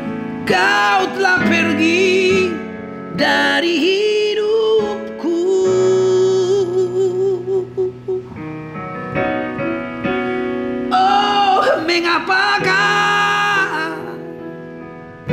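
A man singing a slow Indonesian pop ballad in long, wavering phrases with vibrato, over sustained keyboard chords.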